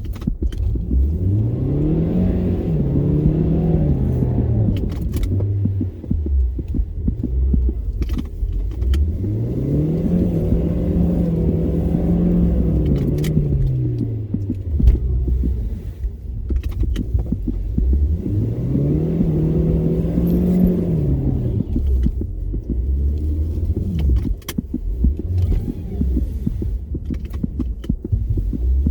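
Car engine revving up, holding for a few seconds and dropping back to idle, over and over about every nine seconds, with scattered sharp clicks between.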